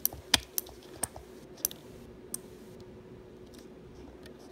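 Half a dozen light clicks and taps from a battery pack and jumper wires being handled and connected, all in the first two seconds or so, with a faint steady hum underneath.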